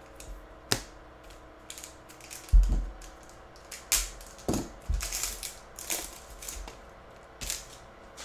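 Crinkling and crackling of a trading-card pack wrapper and cards being handled, in a string of short sharp rustles. A low thump about two and a half seconds in is the loudest sound.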